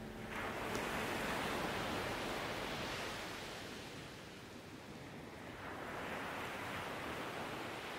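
A soft, even rushing noise that swells about half a second in, eases off around the middle and swells again near the end, like surf or a wind sweep.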